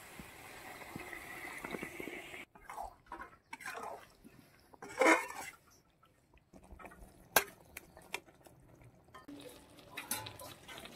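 A little water poured into a hot wok of spiced soya chunks once the masala's oil has separated, hissing as it hits, then a steel spatula stirring and scraping against the wok. The loudest scrape comes about five seconds in, with a sharp click a couple of seconds later.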